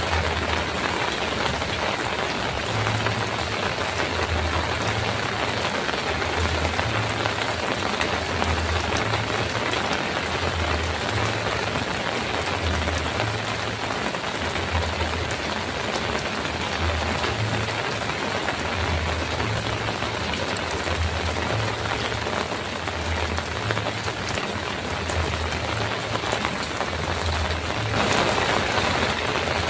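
Heavy rain drumming steadily on a metal roof, a dense, even downpour that swells slightly near the end, with a low pulsing hum underneath.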